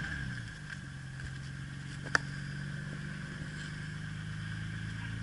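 Nissan Skyline R32 GT-R's RB26DETT twin-turbo straight-six dropping back from a rev and idling steadily; the owner says it has developed a knock that gets worse with revs, which the title calls rod knock. A single sharp click sounds about two seconds in.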